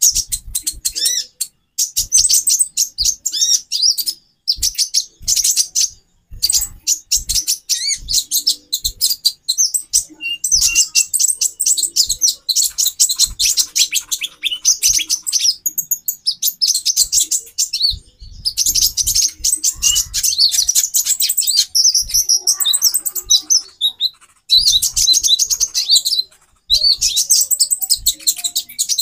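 Several female konin (kolibri ninja) sunbirds chirping in fast, high, twittering runs, in bursts of a few seconds with short pauses between, with faint low knocks underneath. These are female calls played as a lure to rouse male konin into breeding condition.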